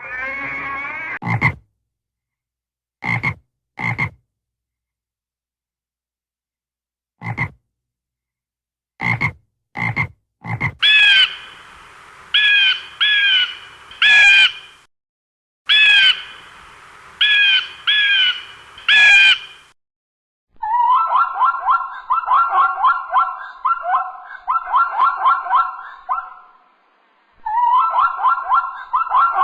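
Frogs croaking. Short single croaks come at first, then a run of repeated croaks, and from about two-thirds of the way in there are fast trilled calls with a short pause.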